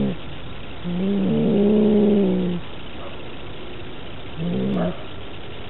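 Cat yowling low and drawn out: a call ending right at the start, a long steady one of nearly two seconds about a second in, and a shorter one about four and a half seconds in.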